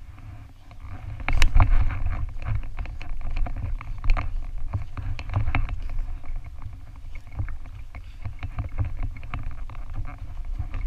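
Running footsteps on a dirt trail, irregular thumps and clicks over a steady low rumble of wind and movement on a GoPro's microphone; a loud knock about a second and a half in.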